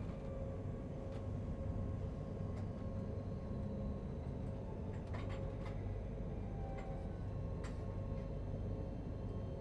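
Steady low rumble and hum inside a moving Astoro high-speed passenger train, with a few light clicks and ticks, mostly a little past halfway.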